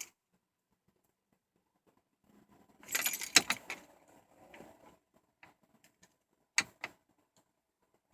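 Car keys jangling and clicking: a burst of rattling about three seconds in, a few small ticks, then two sharp clicks near the end.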